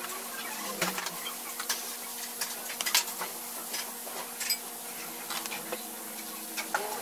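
Sped-up kitchen handling: scattered light clicks and taps as a sponge cake on a paper plate is handled and moistened from a squeeze bottle, over a steady hum.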